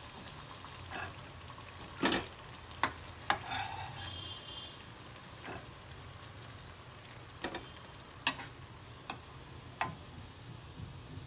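Chana dal pakoras frying in hot oil in a steel kadhai, a steady low sizzle, with several sharp clinks of a steel spatula against the pan as the pakoras are lifted out.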